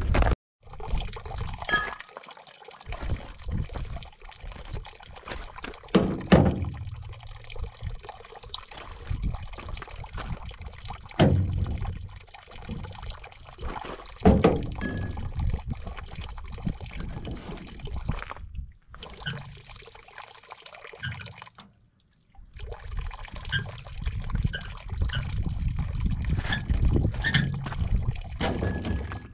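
Spring water trickling and pouring from a fountain pipe while plastic water bottles are filled, with a few knocks as the bottles are handled.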